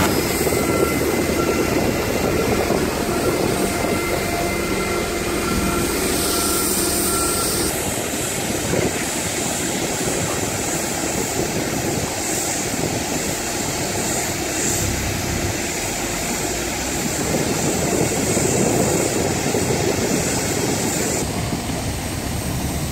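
Heavy construction machinery running, a steady engine noise that changes in character about a third of the way in and again near the end.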